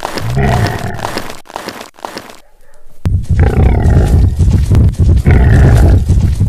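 Loud, low-pitched animal calls: one call at the start, then a longer run of calls from about three seconds in.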